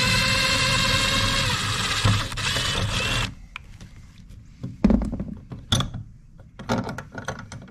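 A loud, steady pitched whir that cuts off abruptly about three seconds in, followed by scattered sharp metallic clicks and clinks of screws and hardware being handled.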